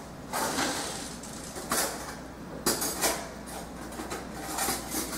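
Kitchen clatter: a handful of separate clinks and knocks of dishes and cutlery spread over several seconds, as a fork is fetched.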